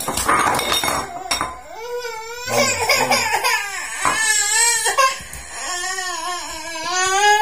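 A young child crying in a series of long, high, wavering wails, starting about two seconds in and going on to the end.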